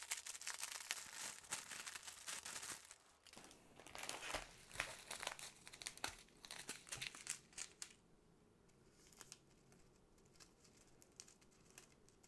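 Clear plastic wrap and small plastic bags of diamond painting drills crinkling as they are handled and pulled apart. The crackling is dense for the first few seconds, grows patchier, and is mostly quiet after about eight seconds, with only a few faint crackles.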